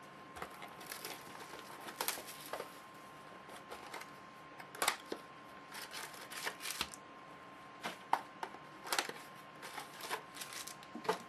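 Sports-card packaging being handled and opened: scattered crinkles, rustles and sharp clicks of cardboard boxes and wrappers, with a faint steady thin hum underneath.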